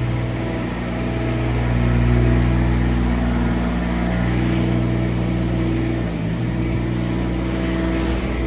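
Construction machinery engine running steadily nearby, its pitch shifting slightly about four and again about six seconds in.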